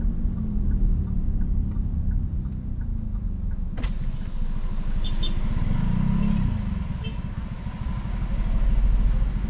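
Car engine and road rumble heard inside the car's cabin, the engine's pitch rising and falling a couple of times as it speeds up and slows. There is a brief click about four seconds in.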